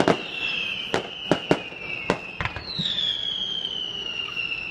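Fireworks going off: a long whistle falling slowly in pitch, sharp bangs at about 0, 1, 1.5 and 2 seconds in, then a second falling whistle starting about three seconds in.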